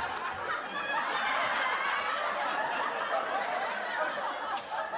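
Sitcom laugh track: many voices chuckling and laughing together at a steady level, with a brief hiss near the end.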